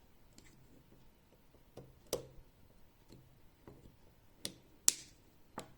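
Sharp clicks and knocks of hard parts being handled: a few small ones, then a louder cluster of three near the end, the middle one the loudest.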